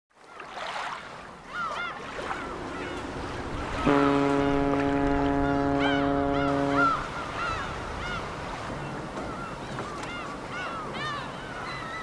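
A ship's horn sounds one steady blast of about three seconds, starting about four seconds in. Gulls call repeatedly throughout over a constant waterfront hiss.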